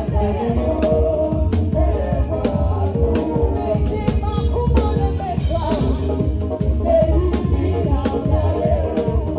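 Live Ghanaian gospel praise music: a drum kit played with regular strokes, an electric bass and singing voices.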